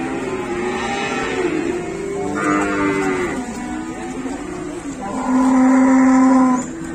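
Several cattle mooing, their long calls overlapping. The loudest, a long steady moo, starts about five seconds in and lasts about a second and a half.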